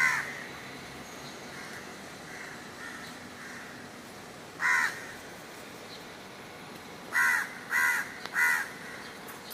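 A crow cawing: short, harsh calls, one near the start, another about halfway through, then three in quick succession near the end, over a faint steady background hiss.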